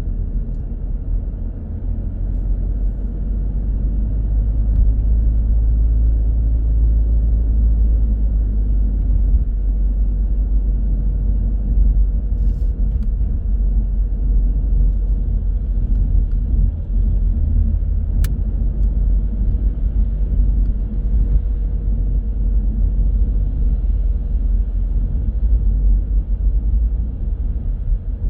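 Car driving in city traffic, heard from the car: a steady low rumble of engine and road noise, with a single sharp click about two-thirds of the way through.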